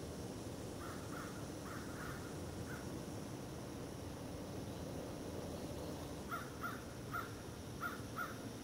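Crow cawing repeatedly: a handful of short caws about a second in, then a louder series of about five caws near the end, over a steady tape hiss.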